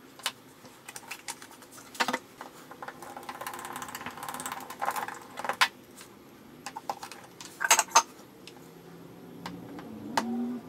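Small objects and hand tools being handled on a workbench: scattered sharp clicks and knocks, a stretch of fast rasping or scraping about three to five seconds in, and a quick run of clicks near eight seconds.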